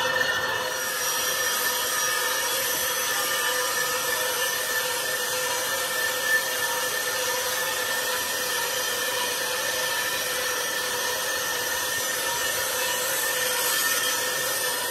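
Metalworking machine running steadily, with a constant whine of several steady tones over a hissing, scraping noise.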